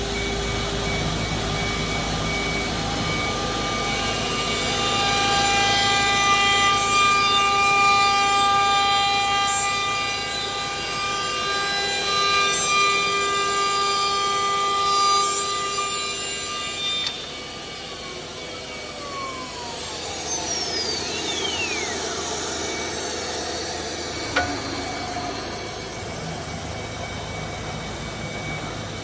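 CNC router spindle running with a steady high whine while its cutter works wood, then spinning down, its pitch falling steeply over several seconds; a single sharp click follows.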